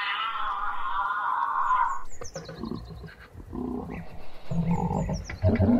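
Giraffe calling: one drawn-out call of about two seconds, then a series of lower grunts and snorts. Short high chirps come twice in the background.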